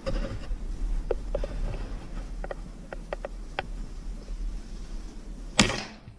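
A single moderated air rifle shot near the end: one sharp crack with a brief ring-off. Before it, a few small handling clicks over a low steady rumble.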